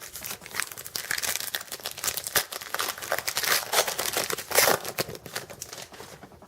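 Plastic wrapper of a trading-card pack crinkling as it is torn open and peeled back, a dense crackling that fades out about six seconds in.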